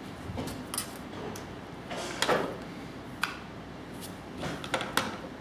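A few light knocks and short scrapes as a clear acrylic ruler and a rotary cutter are handled on a cutting mat, the rotary cutter trimming fabric piping.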